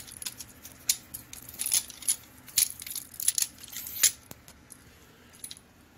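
A string of sharp clicks and light metal rattles as the telescopic pan bar of a Manfrotto 509HD video head is handled and pulled out to extend it. The clicks die away about four and a half seconds in.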